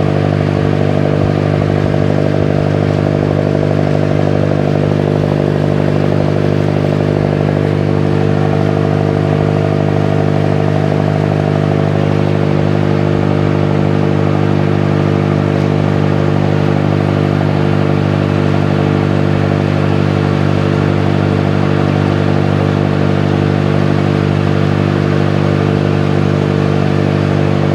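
The engine of a motorized bangka (Filipino outrigger canoe) running steadily at cruising speed, an even drone that holds the same pitch throughout.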